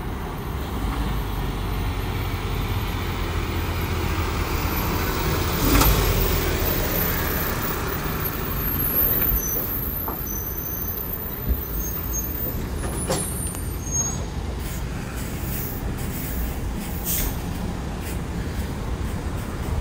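Heavy trucks hauling train cars on long low-loader trailers, passing slowly with diesel engines rumbling and tyre noise. A few short, sharp sounds stand out, the loudest about six seconds in.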